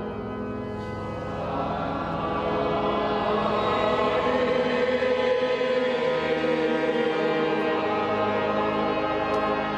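Sacred music of sustained, slowly changing chords that swell louder about a second and a half in.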